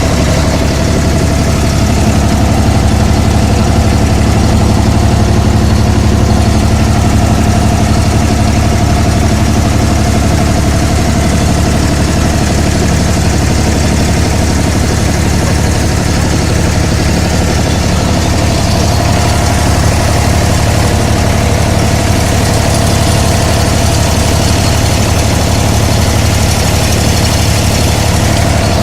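Abra water taxi's diesel engine running steadily, heard loud from on board.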